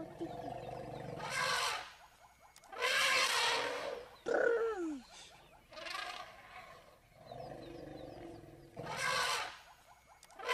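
Lions and an African elephant in a confrontation, calling in several loud, harsh bursts, one followed by a falling call about four seconds in.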